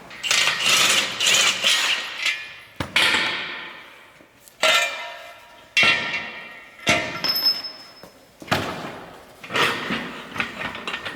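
Metal clanks and hammer-like strikes on steel engine parts and tools, about ten of them at roughly one a second, each ringing briefly before dying away.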